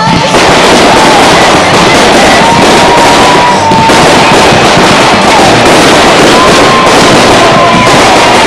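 A fireworks display with a rapid, continuous barrage of crackles and bangs as shots rise and burst one after another.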